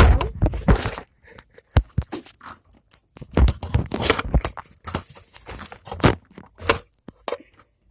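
Irregular knocks, scrapes and crunchy rustles from objects being handled close to the microphone, loudest around the start and in the middle, thinning out near the end.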